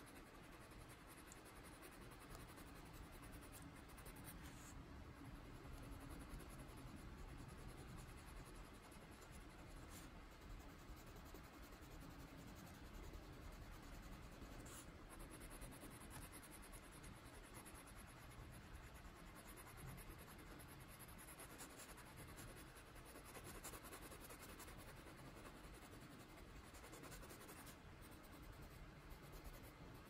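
Faint, steady scratching of a Prismacolor colored pencil rubbing across a coloring-book page in small repeated strokes.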